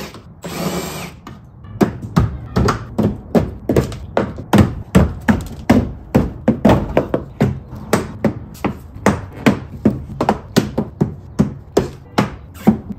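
A power screwdriver runs briefly at the start. Then comes a long run of sharp knocks, about three a second, as the plastic aero lip on a Saab 9-3's rear bumper is struck to seat it in its clips.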